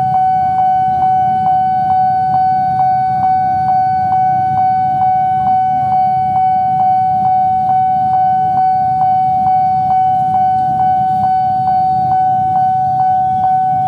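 Electronic level-crossing warning bell ringing, a single steady tone struck again and again at nearly three strikes a second. Under it is the low rumble of the approaching KRL electric commuter train.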